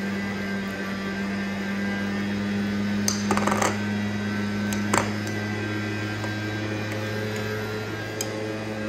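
A leaf blower running steadily outdoors, heard as a low, even hum. A few light clicks come about three seconds in, and one sharp click at about five seconds.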